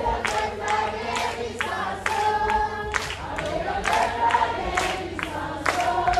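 A group of voices singing a gospel chorus together, with a steady beat of sharp claps about two to three times a second.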